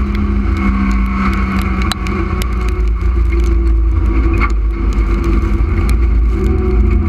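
Street stock race car's engine running hard at racing speed on dirt, heard from inside the bare, stripped cabin as a loud, steady rumble. Scattered sharp clicks and rattles come through the shell.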